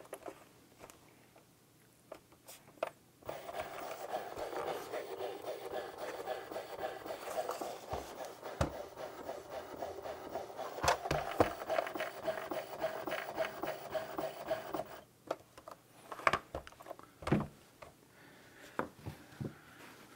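Fleshlight Launch's electric motor running its stroker mechanism for about eleven seconds, a steady whirring whine; the newly reassembled unit is working again. Clicks and knocks from the plastic housing being handled come before and after it.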